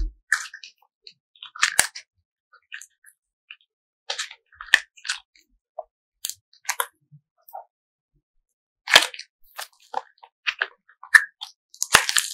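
Soft, fluffy slime being stretched, folded and squeezed by hand, giving off irregular sticky crackles and clicks with short quiet gaps between; the busiest bursts come about nine seconds in and near the end.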